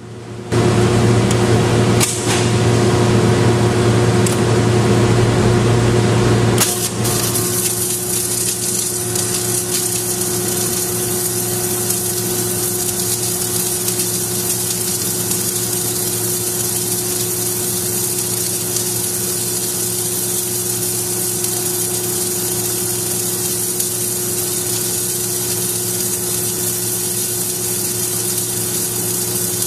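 Submerged arc welding equipment running: a steady mechanical hum with a constant low tone under a hiss. It is louder and rougher for the first six or seven seconds, with a few sharp clicks in that stretch, then settles to an even run.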